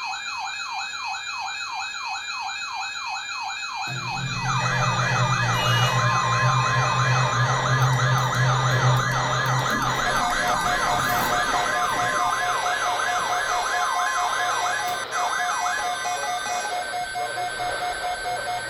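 Several emergency-vehicle sirens in a fast yelp, about two to three sweeps a second, with more sirens overlapping as the sound grows louder about four seconds in. A low steady drone runs under them for several seconds after that.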